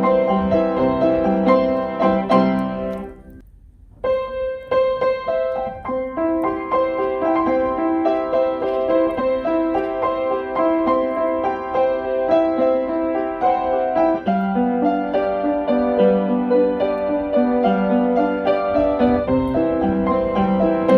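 Background piano music. It fades out about three seconds in and, after a brief pause, a new passage begins.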